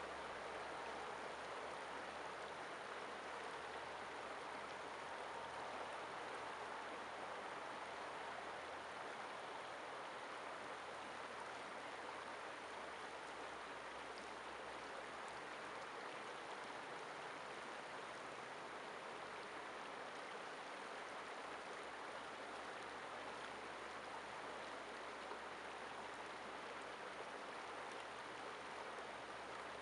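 Shallow river flowing over rocks: a steady, even rush of running water.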